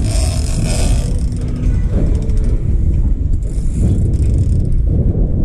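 Steady low rumble of the fishing boat's engine and wind on the microphone, with the mechanical clicking of a big-game fishing reel being wound in on a hooked marlin.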